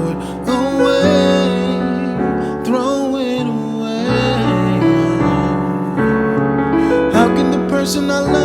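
Slow piano and keyboard music with held chords and a wavering melody line drifting over them.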